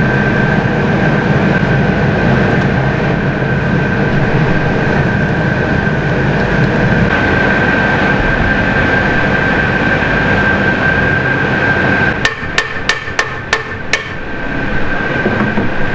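A hammer taps about six times in quick succession on a metal porthole frame as it is seated in its opening, near the end. Underneath runs a steady mechanical hum with a high whine.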